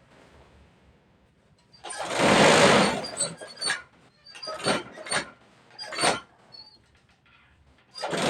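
Industrial feed-off-the-arm chainstitch sewing machine (mesin corong) stitching in short runs: one longer run of about a second about two seconds in, several quick bursts after it, then another run at the very end.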